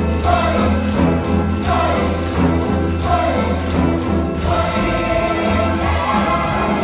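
A musical-theatre cast singing together as a chorus over a live pit orchestra, with a steady bass line underneath.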